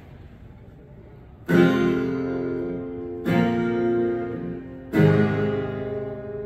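Three guitar chords, each struck once and left to ring out, about a second and a half to two seconds apart, after a quiet first second or so: the opening of the song.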